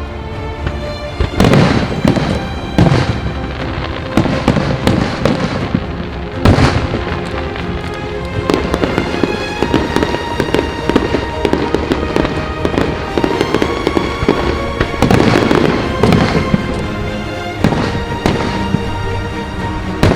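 Aerial fireworks shells bursting again and again, with several loud bangs and crackling between them, over music playing throughout.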